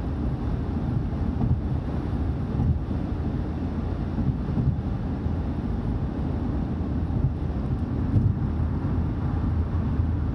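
Steady road and engine noise inside a car cabin at highway speed: a low rumble with a faint hum underneath.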